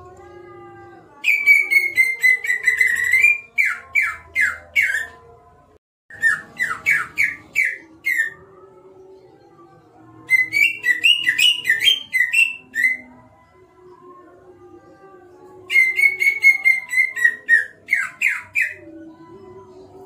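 A caged cucak ijo (greater green leafbird) singing loud, whistled song in four bursts. Each burst is a held whistled note that slides gently down, followed by a run of quick down-slurred notes.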